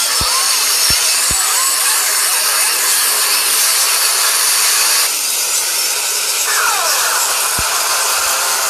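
A loud, harsh wash of noise from many video soundtracks layered and distorted on top of each other, with no clear tune or voice. It has a few short thumps and a falling sweep near the end.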